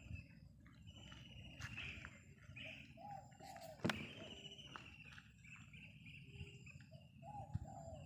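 Faint bird calls in the background: a trilled, falling call repeated every second or so, with softer lower notes between. A single sharp click about four seconds in.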